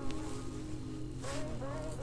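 Background music: held notes with a wavering melody line above them.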